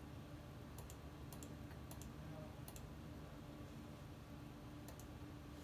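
A computer mouse button clicked about five times, each a short sharp press-and-release, as a desktop pattern is chosen in the Mac's Control Panel, over a steady low machine hum.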